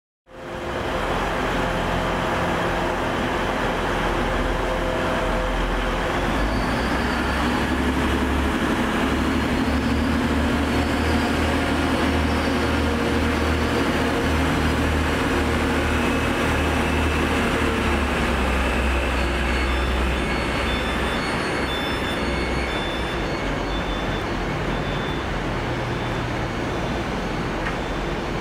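Passenger train running through the station with a steady low rumble that fades off about two-thirds of the way through. After that comes a run of short high beeps.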